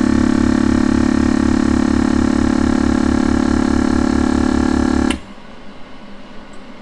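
Avid Armor chamber vacuum sealer's pump running with a steady, pulsing hum as it pulls the vacuum on a bagged load of brined baitfish, then cutting off suddenly with a click about five seconds in.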